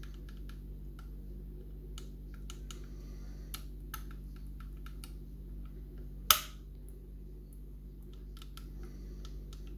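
Scattered light clicks and ticks of a lever-lock pick working the levers inside an old-type ERA Invincible five-lever mortice lock, as each lever is checked for sitting in gate. One sharper, louder click comes about six seconds in, over a steady low hum.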